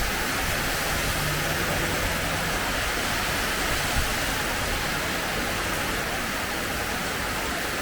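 Heavy rain pouring down: a steady, even rush of water.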